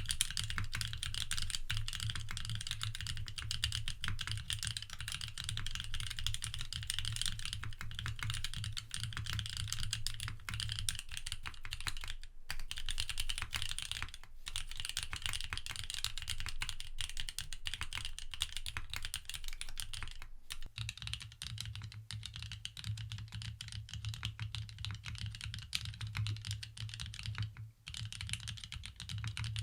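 Mode Envoy mechanical keyboard fitted with Tiger switches, typed on continuously: a dense run of key clicks and clacks, with a few short pauses. On these switches the keys sound louder on release than on press.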